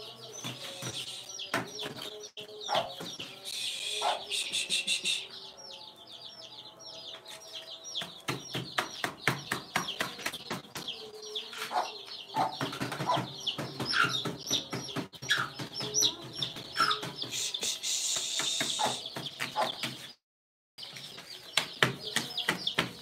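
A flock of chickens: many chicks peeping constantly, high and quick, with hens clucking lower among them. The sound cuts out completely for about half a second near the end.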